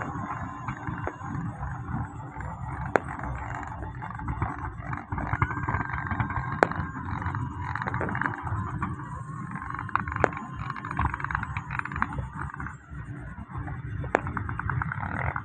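A busy, noisy din with a sharp bang every three or four seconds.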